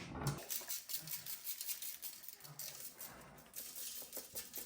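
Seasoning shaken from a shaker onto raw deer backstrap: a light, irregular patter of small ticks.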